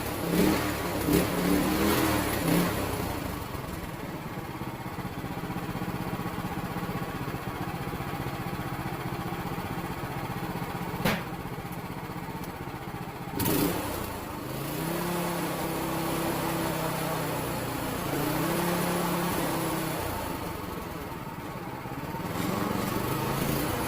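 A brand-new 6.5 hp Predator single-cylinder engine on a pull-behind tiller, running just after its first start. Its speed is raised and dropped back twice in the second half. Two sharp knocks sound near the middle.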